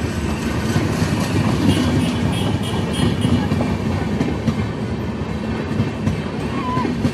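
Passenger coaches of an Indian Railways express train rolling past close by: a steady rumble of wheels on rails with clickety-clack over the rail joints. A faint high wheel squeal comes in about two seconds in and fades a second or so later.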